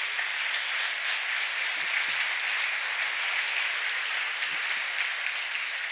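Audience applauding: a steady wash of clapping.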